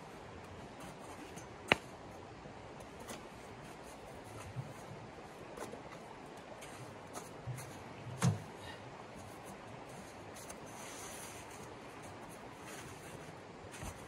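Steady rush of a flowing stream, with a few sharp clicks and knocks from handling camp gear. The loudest is a sharp click near two seconds in, and there is a knock with a low thud about eight seconds in, at the tent's wood stove.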